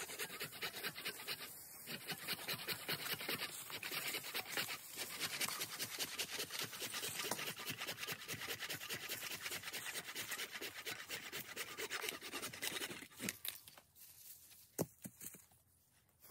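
Dry fallen leaves and brittle twigs crackling and rustling as they are trampled and pulled at while firewood is gathered. The sound eases off about thirteen seconds in, leaving a few sharp snaps, the loudest near the end.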